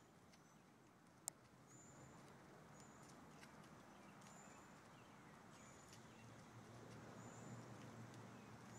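Near silence: faint outdoor ambience, with a single sharp click just over a second in.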